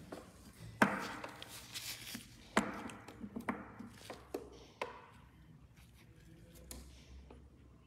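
A few sharp taps and knocks with brief rustling, from a top coat bottle and brush being handled by black-gloved hands while the top coat is applied to a nail; the handling dies down to quiet after about five seconds.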